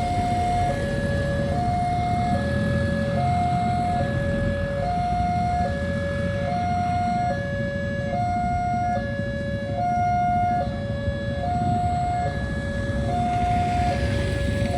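Railway level-crossing warning siren sounding a steady two-tone hi-lo alarm, about one high-low cycle a second, over a low rumble.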